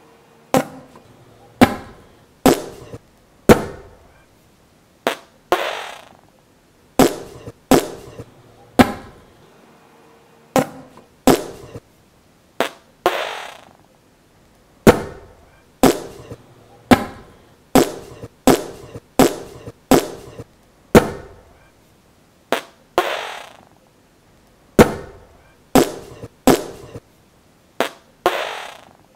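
A series of about thirty sharp bangs at irregular intervals, each dying away quickly, a few trailing off in a longer hiss.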